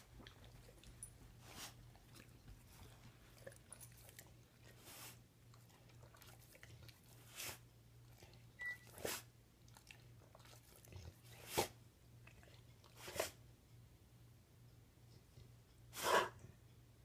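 A dog coughing in short isolated bursts, about eight of them spaced a second or more apart, with the loudest a little before the end.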